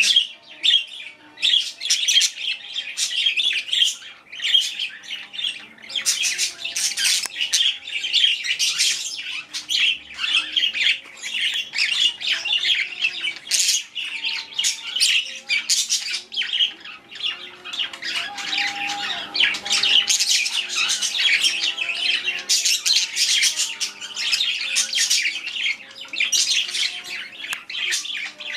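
A flock of pet budgerigars with a cockatiel chattering and squawking, a dense, constant stream of short overlapping chirps and squawks.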